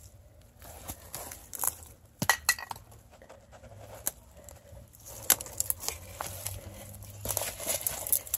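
Dry twigs and dead leaves crackling and snapping underfoot and against the body while pushing through dense brush: irregular sharp cracks over a light rustle, busiest in the second half.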